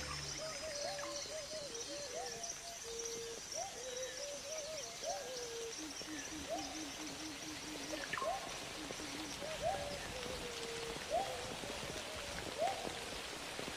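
Forest nature recording: short rising-and-falling animal calls, about one every second and a half, over a steady hiss of rain or insects.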